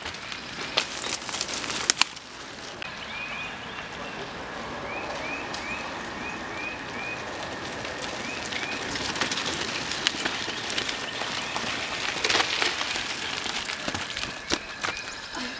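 Mountain bikes rolling past on a dry dirt trail covered in fallen leaves: tyres crackling and crunching over leaves and grit, with a few sharp clicks and rattles in the first couple of seconds.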